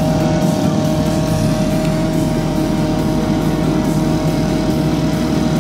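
A steady motor drone at constant speed, with an unchanging hum tone over a low rumble.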